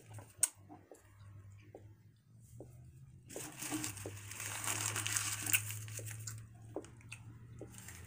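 A gum wrapper being handled and crinkled, with a few small clicks at first, then a dense crackling from about three seconds in to about six seconds in.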